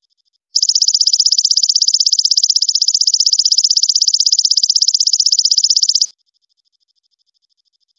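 Golden katydid (belalang emas) stridulating: a loud, high-pitched, rapidly pulsed buzzing trill of about a dozen pulses a second. It starts about half a second in and cuts off suddenly about six seconds in, over a fainter steady trill.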